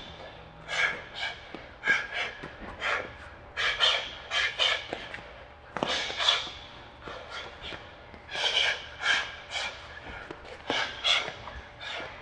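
A boxer's sharp exhales while shadowboxing: short hissing breaths, often two or three in quick succession, timed with each flurry of punches.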